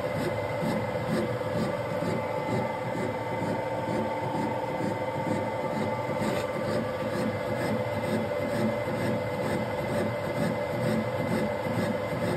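Metal lathe running and facing the end of a cast-iron casting held on a ring mandrel, taking a 20 thou (half-millimetre) cut. The sound is a steady hum with a regular pulsing beat.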